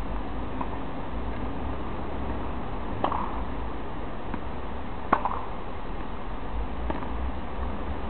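Tennis ball impacts during a rally on a hard court: two clear sharp pops about two seconds apart, the second the louder, with a couple of fainter ones, over a steady low background noise.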